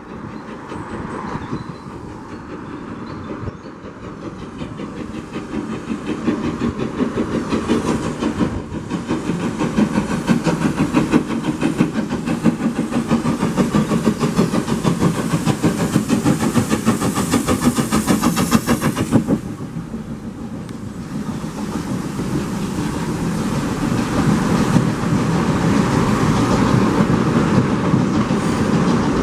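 Taff Vale Railway O2 class 0-6-2 tank engine No. 85 departing under steam, its exhaust chuffing in a quick even rhythm that grows louder as it approaches and stops suddenly about twenty seconds in. Its coaches then roll past with a steady rumble and clickety-clack over the rail joints, getting louder.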